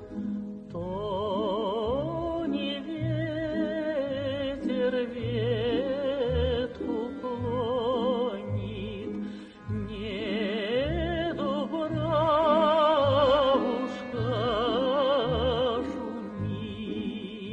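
A woman singing a slow Russian folk song with wide vibrato over instrumental accompaniment with a steady bass line. The voice comes in about a second in, after a short instrumental lead-in.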